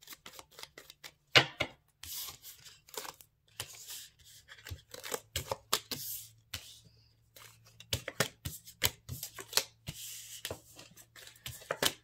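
Tarot and oracle cards being gathered up off a table and handled: a quick run of slaps, flicks and sliding rasps, with one sharp snap about one and a half seconds in.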